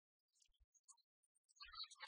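Near silence, with a few faint, scattered clicks and soft thumps.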